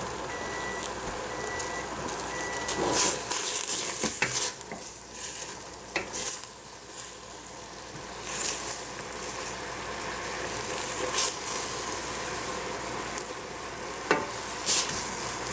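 Baby cabbage (xiao bai cai) sizzling in a stainless steel pot while a wooden spatula stirs it, with scattered scrapes and knocks of the spatula against the pot.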